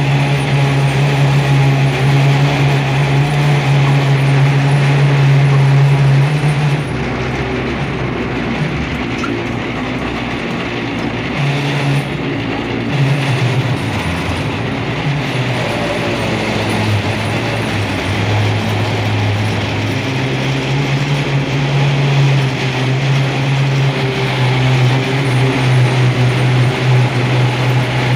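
Train running with a loud, steady low hum and rumble; the hum drops in pitch about a quarter of the way in and rises again about two-thirds through.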